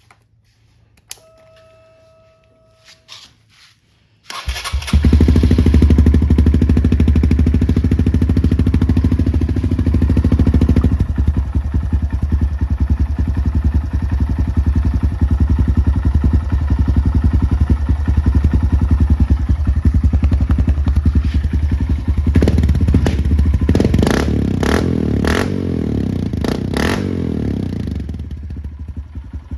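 Small dirt bike engine started about four seconds in, then running at idle, with a few sharp louder pulses near the end. It is being run to test foil exhaust wrap put over a leaking exhaust joint.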